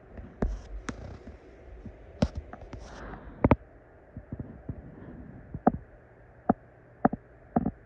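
Irregular sharp clicks and knocks, about nine of them spread unevenly, as tools and a part are handled on a work surface.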